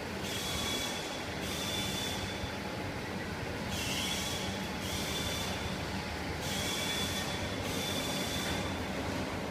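IMAGE commercial washer-extractor running, a steady mechanical hum with hissing bursts that come in pairs about every three seconds.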